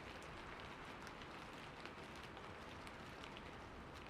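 Steady rain falling, a soft even hiss with scattered small drop ticks.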